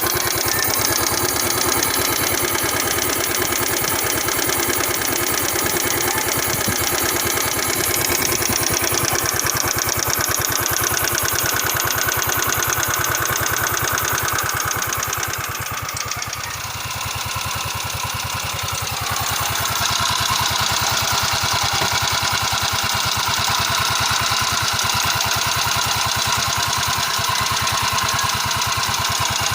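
Yamaha Mio scooter's single-cylinder four-stroke engine idling with a rapid, steady valve ticking. The sound dips a little quieter about halfway through, then comes back.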